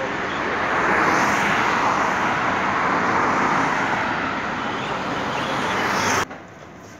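Road traffic on a wide street: cars passing close by as a steady rush of tyre and engine noise, a little louder about a second in, cutting off suddenly near the end.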